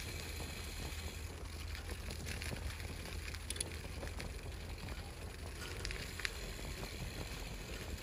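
Outdoor ambience: a steady low rumble with a few light, irregular crackles and clicks.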